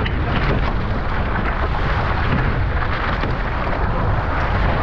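Heavy wind buffeting the microphone over a steady rush of water, aboard a Nacra 15 sailing catamaran under way.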